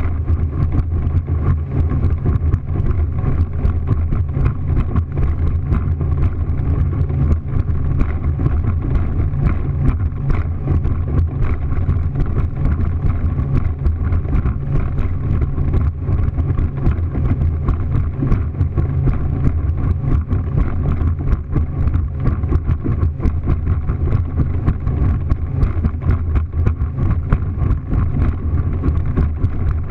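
A motorboat running fast over choppy water: the steady low drone of its motor under rushing water, with frequent irregular knocks as the hull meets the chop.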